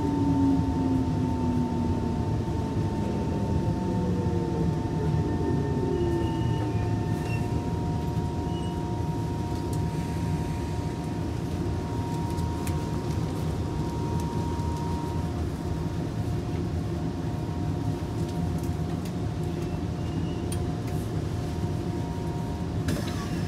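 Interior sound of an SMRT Kawasaki C151 train: the traction motor whine falls in pitch over the first few seconds as the train slows, then a steady rumbling hum with a constant high tone carries on.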